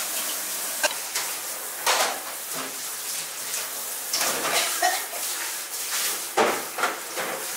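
Restaurant dish and utensil clatter: short knocks and clinks every second or so over a steady background hiss.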